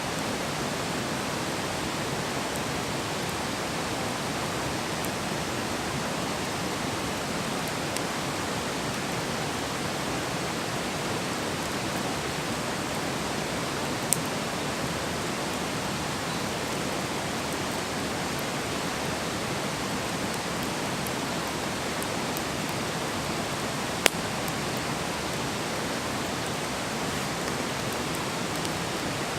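Wood campfire burning with a steady rushing hiss, broken by a few sharp crackling pops, the loudest about two-thirds of the way through.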